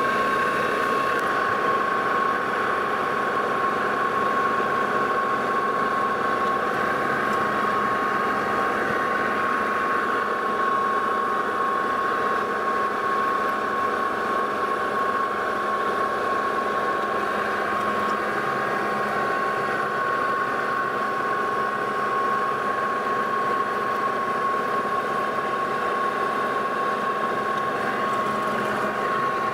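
Metal lathe running steadily with a constant whine from its gearing, the spindle turning and the carriage feeding for single-point internal threading of a collet nut.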